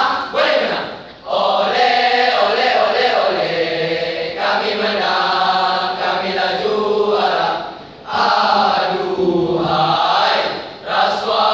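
A boys' choral speaking troupe chanting in unison, with the lines partly sung and held in phrases. There are brief pauses between phrases about a second in and again around eight seconds.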